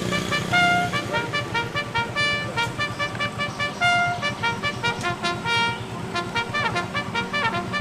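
Many caged songbirds singing at once: a dense chorus of short, overlapping whistled notes at many different pitches.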